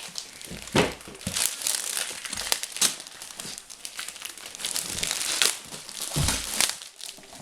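Plastic Lego parts bags crinkling and rustling as they are handled, with irregular sharp crackles and clicks.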